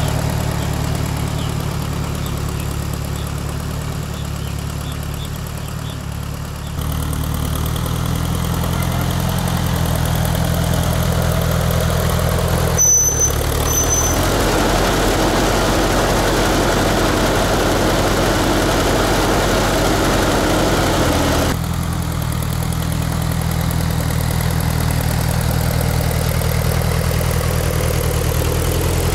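1955 Ford 650 tractor's four-cylinder engine running steadily as it pulls a disc harrow through the garden soil. It grows louder for several seconds in the middle as the tractor passes close, then drops back. A brief sharp click comes about halfway through.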